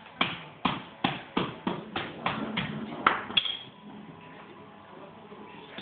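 A run of sharp knocks, about three a second and quickening slightly, each with a short ring, that stops about three and a half seconds in; a faint steady tone is left after it.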